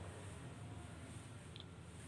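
Faint room tone: a steady low hum with a light background hiss, and one small click about one and a half seconds in.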